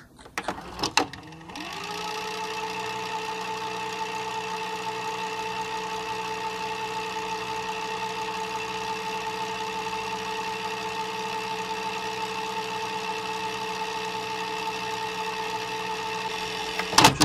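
VHS fast-forward sound effect: a steady whir made of several even tones, which winds up with a short rise in pitch about a second and a half in and then holds level. A few clicks at the start and a cluster of clicks just before the end.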